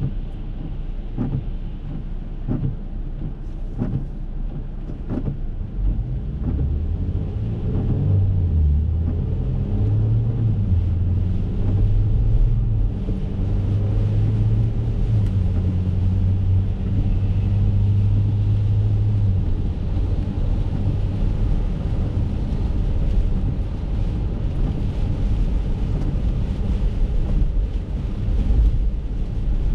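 Acura MDX heard from inside the cabin, pulling away from a stop on a wet road: the engine drone climbs in steps as the car gathers speed, over a steady hiss of tyres on wet pavement. A few light ticks sound during the first few seconds before it moves off.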